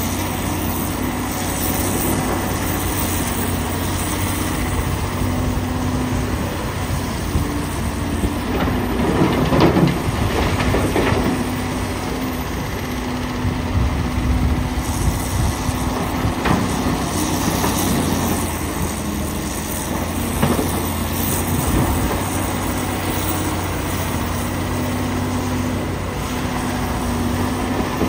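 Komatsu PC450LC hydraulic excavator's diesel engine running steadily under load while it digs and loads blasted rock into a dump truck. Loose rock clatters and crashes into the truck's steel bed about a third of the way in and again at the very end.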